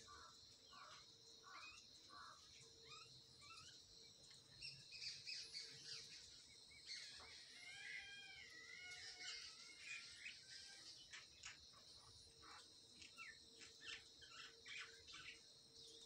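Faint wild birds chirping, with one warbling phrase near the middle, over a steady high insect drone.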